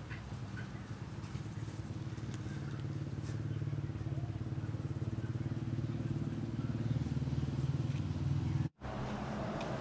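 A small engine running steadily nearby, a low hum that swells a little over several seconds, with a few faint high chirps over it; the sound cuts out for an instant near the end.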